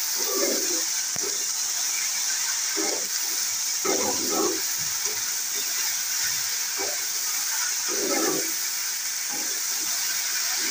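Chopped okra sizzling in hot oil in a wok: a steady frying hiss, broken now and then by short scrapes of a metal spatula stirring the pieces.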